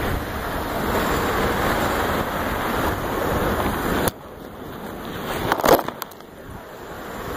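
Wind rushing over a phone's microphone, mixed with scuffing on loose gravel, as someone scrambles up a steep slope. The rushing cuts off suddenly about four seconds in. A couple of brief sharp noises follow near the end.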